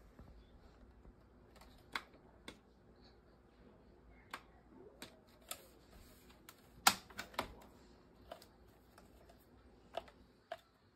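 Irregular clicks and taps from handling a cordless stick vacuum, about a dozen over the stretch, the loudest about seven seconds in; no motor runs, as the vacuum will not turn on.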